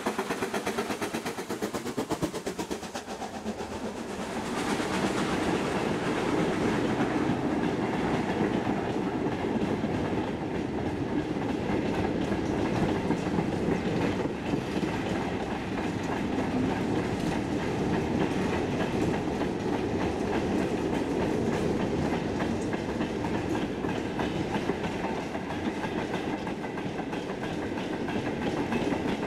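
BR Standard Class 9F steam locomotive 92214 passing with a fast, even exhaust beat that fades within about three seconds. Its long train of goods wagons and vans then rolls steadily past, with the wheels clacking over the rail joints.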